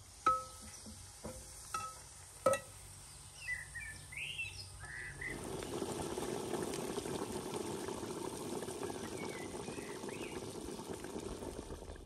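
A metal skimmer clinks against a large metal cooking pot four times, each clink ringing briefly. About five seconds in, a steady bubbling, pouring sound starts as liquid is poured into the pot of boiling broth. Birds chirp faintly in the background.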